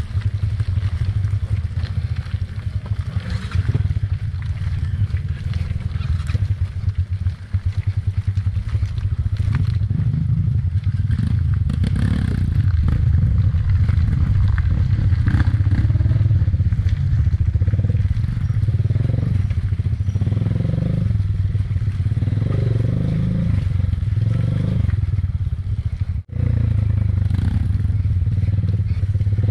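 Dirt bike engine running at low revs, climbing a rough, rutted dirt trail, its pitch rising and falling in the later part. Frequent knocks and rattles come from the bike over rocks and ruts.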